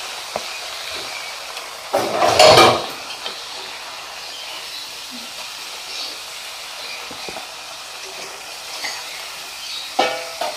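Potato sticks sizzling in hot oil with a steady hiss. A stainless-steel slotted spoon scrapes and clatters against the frying pan as the fries are scooped out; the loudest clatter comes about two seconds in, and smaller clinks follow.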